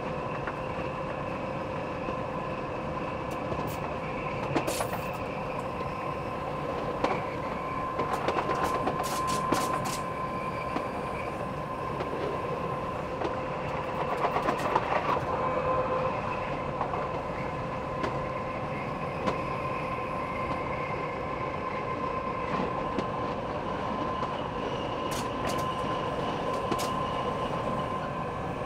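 Metre-gauge electric passenger train running, heard from the driver's cab: a steady whine over the rumble of the wheels, with several spells of clicking and clatter as the wheels cross rail joints or points, loudest about eight to ten and fourteen to fifteen seconds in.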